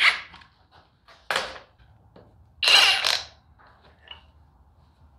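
Battery packs being slid off and onto cordless impact wrenches: three short sliding scrapes, the last the longest, with a few small clicks between.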